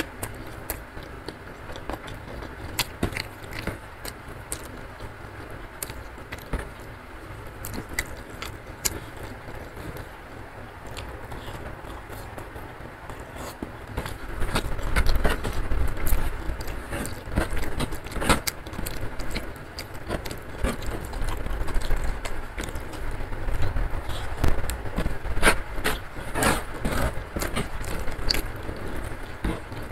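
Close-up eating sounds: chewing with the mouth closed, with many small clicks and smacks, and fingers gathering rice across a wooden tray. A steady rumble of rain sounds underneath. The eating sounds grow louder about halfway through.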